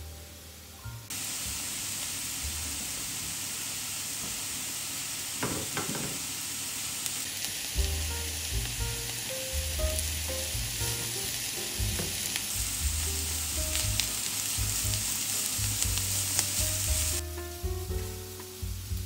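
Grated carrot and diced onion sizzling in hot oil in a frying pan. The sizzle cuts in about a second in, runs steadily, and stops abruptly near the end.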